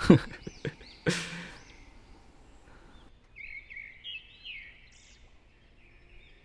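Small birds chirping repeatedly in short arched calls. Near the start there are a few sharp knocks and a brief rustle.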